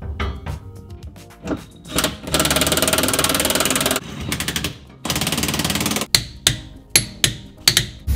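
Cordless impact wrench hammering in two bursts, one of nearly two seconds and then one of about a second, with sharp clicks and knocks of tools on metal around them, over background music.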